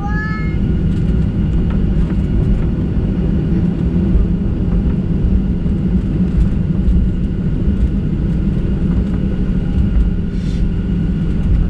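Cabin noise of a Boeing 737-700 taxiing, heard from a window seat beside the wing: the CFM56-7B turbofans' steady low rumble at taxi power, with a faint steady whine above it.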